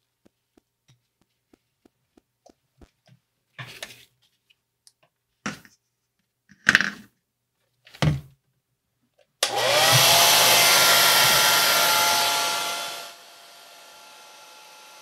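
Handheld hair dryer switched on about nine seconds in, its motor spinning up with a rising whine over a steady rush of air. About four seconds later it drops to a much quieter steady run. Before it starts there are a few brief knocks and rustles.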